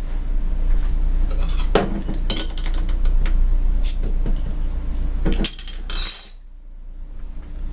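Clinking and clattering of hard objects, metal or glass, being handled on a surface: a series of sharp clinks, with a short louder rustle-like burst about six seconds in, after which the background hum drops away.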